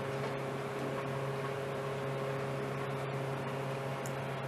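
Steady low hum with a faint hiss under it, holding level throughout, with no clatter from the pot or ladle.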